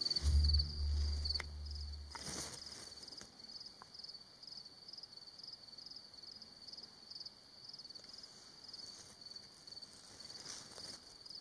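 An insect chirping steadily: short high-pitched chirps, about two a second, over faint open-air background. A low hum sounds during the first two seconds and then stops.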